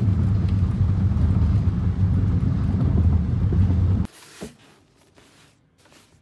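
Steady low rumble of road and engine noise inside a moving car's cabin, cutting off abruptly about four seconds in. After it come faint rustles and a soft knock as a fabric bag is set down on a plastic chair.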